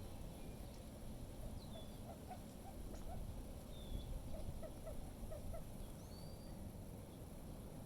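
Wind rumbling on the microphone, with backyard birds calling over it: two runs of short, low clucking notes, several a second, in the middle, and a few high chirps and short whistles.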